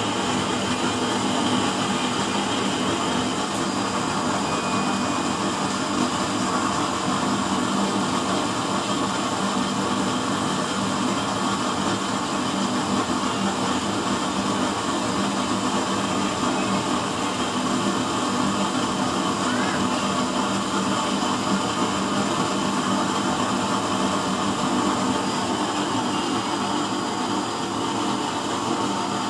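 Used-oil burner stove running, a steady rushing noise of the forced-air flame with a steady low mechanical hum under it.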